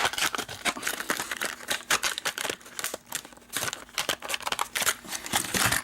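Stiff plastic blister packaging being cut and pulled open, a busy run of crinkling, crackling and snapping.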